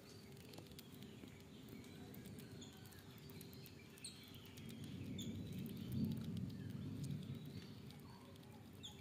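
Quiet outdoor background: a low rumble that grows louder in the middle, with a few short, high bird chirps and faint small clicks.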